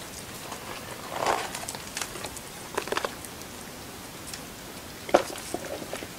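Several dogs sniffing and eating French fries off concrete: scattered short snuffles and clicks of mouths and claws, the sharpest click about five seconds in.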